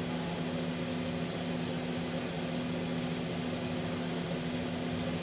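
Steady machine hum: a low drone with a second tone that cuts out briefly about once a second, over a bed of fan-like noise.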